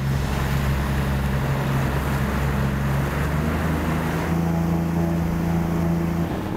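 A boat's petrol outboard engine running at speed, a steady drone whose pitch shifts a little partway through, over the rush of water and wind as the hull planes and throws a wake.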